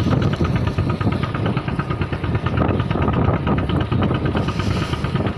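A fishing boat's engine running steadily, with an even, fast beat.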